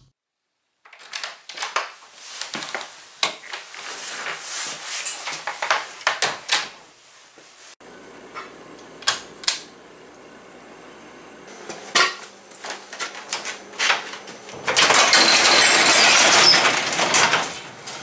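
Metal hand tools and parts clattering and clinking as they are handled, with a faint steady hum under the middle stretch. Near the end there is a loud rushing rumble for about three seconds.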